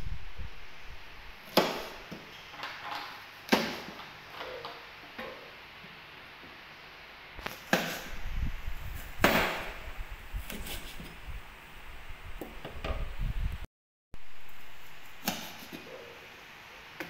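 Steel cleaver chopping small limes on a wooden cutting board: about five loud, irregularly spaced knocks as the blade goes through the fruit into the board, with softer taps and scrapes between.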